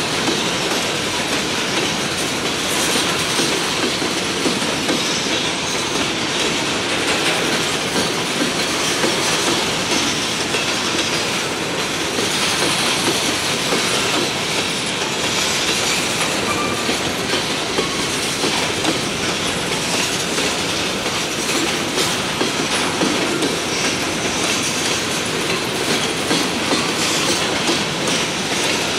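Freight train's covered hopper cars rolling past: a steady, loud noise of steel wheels on rail with a running clatter.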